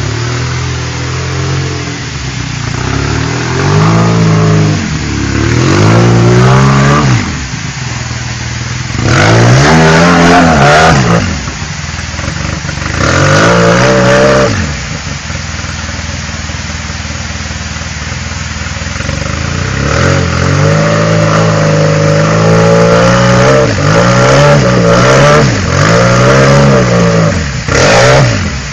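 A vehicle's engine revving hard in repeated bursts, the pitch climbing and falling back each time, as it crawls up the rocks of a waterfall under load.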